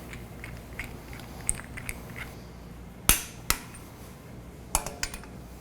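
Wrench tightening lug butterfly valve flange bolts to final torque: a run of light ratchet ticks, then sharp metallic clicks, two about three seconds in and a few more near the end.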